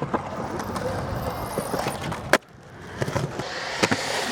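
Skateboard wheels rolling. A little past halfway a single sharp clack cuts the rolling off, then the rolling starts again and grows louder, with a few lighter knocks and a final clack.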